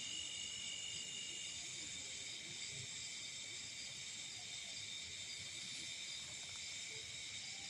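Insects chorusing: a steady, high-pitched, layered trilling, with one of the voices dropping out about a second and a half in.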